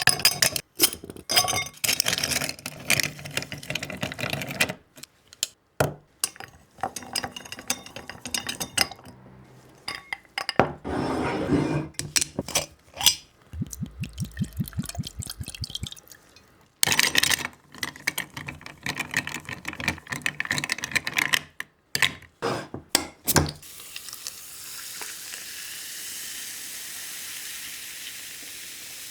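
A whisky highball being made in a glass over clear ice: ice cubes clinking and knocking against the glass and being stirred, with liquid poured in. Near the end a steady fizzing hiss of carbonated soda takes over.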